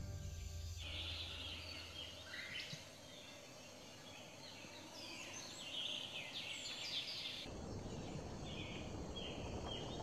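Rainforest birds calling together: many short chirps and whistles overlapping, thinning to a few scattered calls after about seven and a half seconds.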